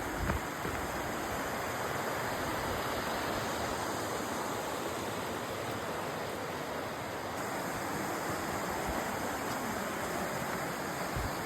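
Steady rushing roar of a hard-flowing waterfall, "ripping", heard ahead before it comes into view. There are a couple of brief low knocks about the start.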